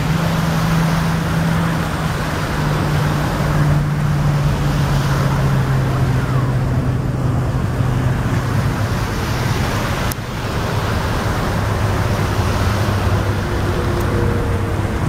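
A low engine hum, its pitch slowly dropping over the first ten seconds or so, over a steady rushing noise, with a single sharp click about ten seconds in.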